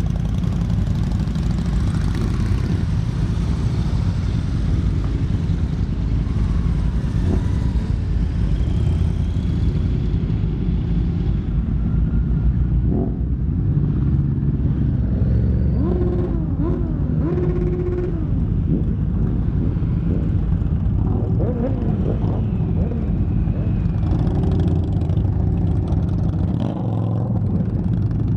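A procession of motorcycles, cruisers and sport bikes among them, riding slowly past at low speed with their engines running in a loud, steady low drone. Now and then single engines rev up and down, most clearly about halfway through and again later.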